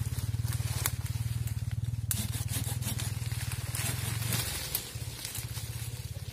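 Dry pruned coffee branches and leaves rustling and crackling as they are dragged through the bush by hand, with a few sharp snaps and scrapes; the rustling thickens in the middle, then eases. A low, fast-pulsing rumble runs underneath.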